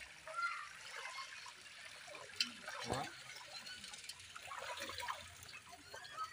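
Pangas catfish feeding at a pond's surface: scattered small splashes and gulps of water, with a louder splash about three seconds in.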